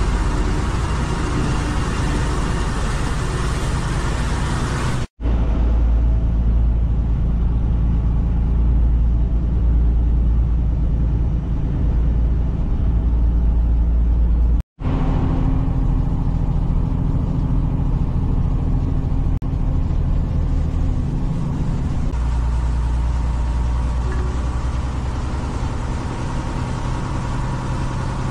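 Semi-truck cab at highway speed: steady low engine drone and tyre and road noise heard from inside the cab. The sound cuts out for an instant twice.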